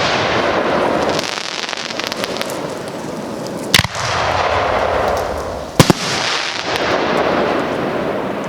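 Fireworks going off: a dense continuous crackle, with two sharp, loud bangs of bursting shells about four seconds and about six seconds in, the second a quick double report.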